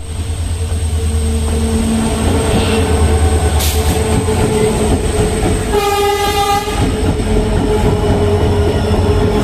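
A train running on the railway line, its locomotive and wagons giving a steady loud rumble, with one short horn blast about six seconds in.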